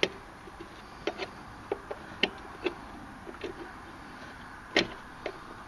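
Small sharp metal clicks and taps at irregular intervals as a screwdriver pries at a snap ring on a snowmobile starter's pinion shaft. The sharpest clicks come right at the start and a little before the end.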